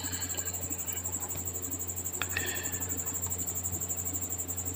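Steady background with no speech: a low electrical hum under a continuous high-pitched pulsing trill, like a cricket's. There is a faint click about two seconds in.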